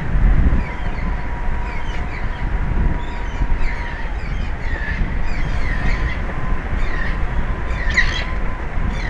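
Wind buffeting the microphone with a low rumble under a thin, steady whine, while birds give short, falling chirps, one or two a second, that grow busier in the second half.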